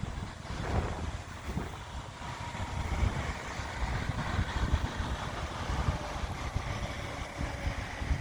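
Wind buffeting the microphone in uneven gusts, a low rumble over a steady hiss.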